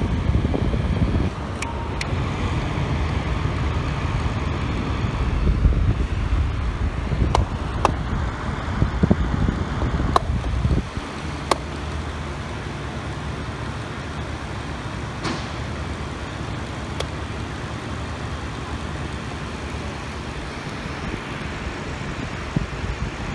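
Electric pedestal fan running, its air blowing onto the microphone as a steady low rumble and rushing noise, with a few sharp clicks from its controls. The rumble eases about 11 seconds in.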